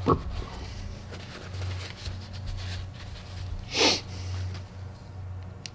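Cloth rag rustling as small suspension-fork parts are wiped clean on a workbench, with one short breathy burst about four seconds in.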